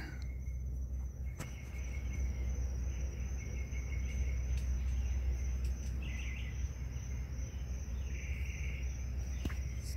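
Crickets and other insects trilling steadily, with a few patches of louder chirping coming and going, over a constant low hum.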